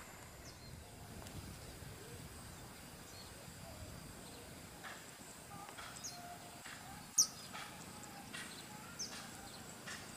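Birds chirping: scattered short, high calls, one louder call a little past the middle, over a faint steady outdoor background.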